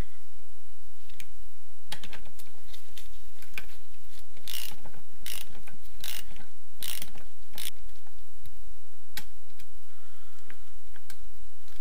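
Hand socket ratchet clicking as a stubborn bolt on the engine's gearshift mechanism is worked loose. A run of about five louder ratchet strokes comes around the middle.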